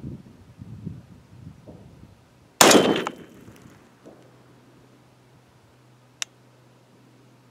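A single rifle shot from a 6.5 Creedmoor, a sharp crack that rings out over about a second. A short sharp tick follows about three and a half seconds later.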